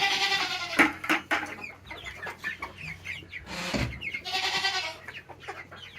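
Chickens clucking, with two longer squawking calls, one at the start and one about four seconds in, and a knock just before the second.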